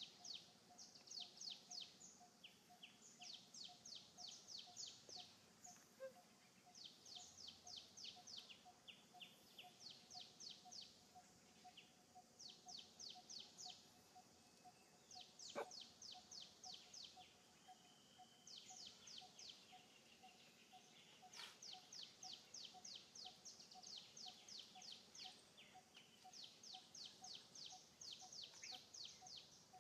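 Faint forest birdsong: quick trills of high, falling notes come in short bouts every second or two, over a steady low note repeated about twice a second. One sharp click sounds about halfway through.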